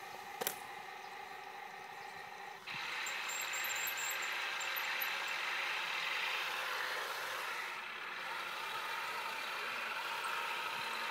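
Airsoft tank's motor: a sharp click near the start, then about two and a half seconds in a louder steady running noise starts suddenly and keeps going.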